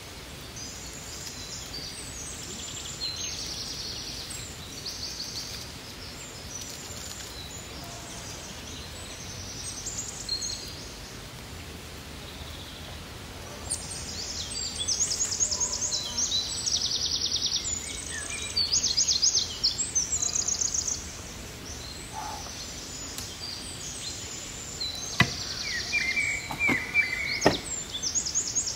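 Songbirds singing: repeated high chirps and trills, busiest in the middle, over a quiet outdoor background, with a few sharp knocks near the end.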